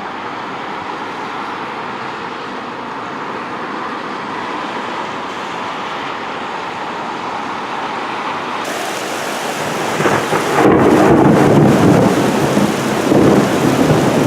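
Steady rain falling, then about ten seconds in a long, loud rumble of thunder rolls in and keeps going.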